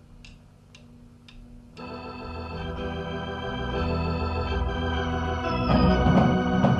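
A rock band starting a song: a few faint ticks about every half second, then a held organ chord swells in just under two seconds in, and the sound grows louder and fuller near the end as more of the band comes in.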